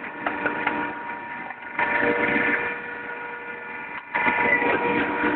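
Hydraulic can-baling press's 5.5 HP electric motor and hydraulic pump running with a steady hum. It gets louder about two seconds in, and again after a brief dip near four seconds, as the control valve is worked and the ram is raised.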